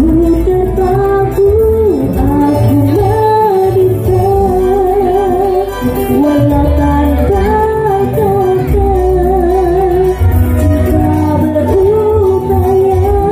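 Amplified live band music: a woman singing into a microphone with a wavering vibrato melody, over keyboard, electric guitar and a steady bass.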